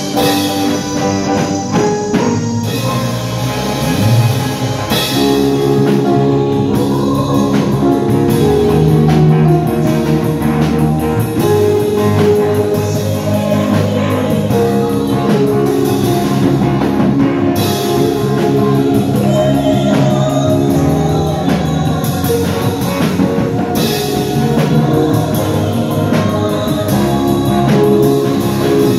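Live band music from electric guitar, bass guitar and a drum kit, with women's voices singing a melody over it through microphones.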